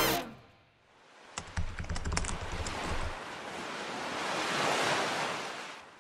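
Background music cuts off at the start. After a short silence comes a logo sound effect: several quick keyboard-typing clicks over a low rumble, then a surf-like rush of noise that swells and fades away.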